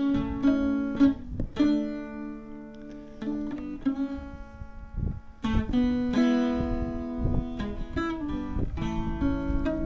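Background music: acoustic guitar, plucked and strummed notes in a steady rhythm.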